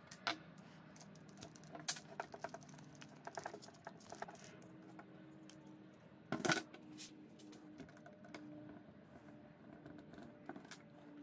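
Scattered clicks and light clatter of an angle grinder being taken apart by hand: its plastic housing and small metal parts knocked together and set down on a wooden tabletop. One knock a little past the middle is louder than the rest.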